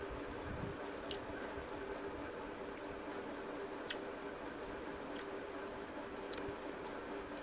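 Hand-eating sounds: fingers squishing and mixing rice with curry gravy on a steel plate, with a few short sharp clicks, over a steady low hum.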